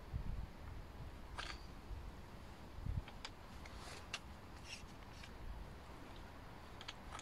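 Light handling noise from a Makita DHR202Z rotary hammer and its parts: scattered small clicks and rattles, with a low bump at the start and another about three seconds in.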